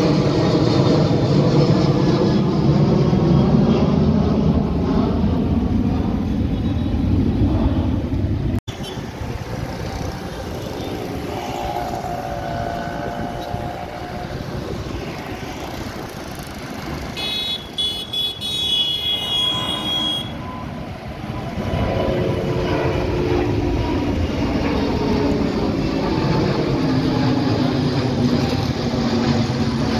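Jet airliner engines at climb thrust passing overhead: a Boeing 737-800's CFM56 engines rumble with sweeping, falling tones until the sound cuts off abruptly about a third of the way in. After that comes the quieter, distant roar of an Airbus A350-900 taking off, with a brief high-pitched tone a little past the middle. The A350's Rolls-Royce Trent XWB engines grow loud again as it passes overhead, with the same falling sweeps near the end.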